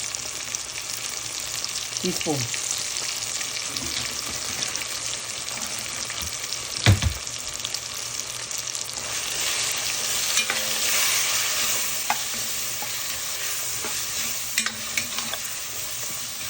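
Curry seasoning paste sizzling steadily in hot oil in a pot while a utensil stirs and scrapes it, with occasional clicks against the pot. One sharp knock about seven seconds in is the loudest sound, and the sizzle swells for a couple of seconds around the ten-second mark.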